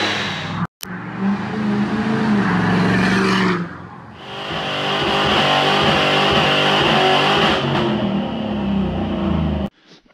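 Ford Mustang engines revving hard in short clips cut abruptly together: a Fox-body Mustang held at high revs on a chassis dyno, and after a brief dropout a Mustang revving through a burnout. The sound cuts off abruptly near the end.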